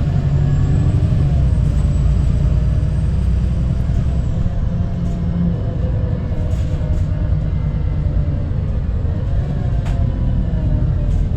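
VDL SB200 Wright Pulsar 2 single-deck bus on the move, heard from inside the saloon: a deep, steady engine and drivetrain rumble that eases slightly about four and a half seconds in. A thin high whine sounds for the first few seconds, and a few short clicks or rattles come through in the second half.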